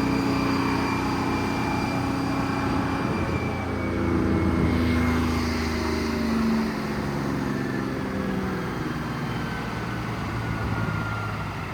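Sawmill driven by a bus engine, running steadily, with its engine note shifting in pitch midway.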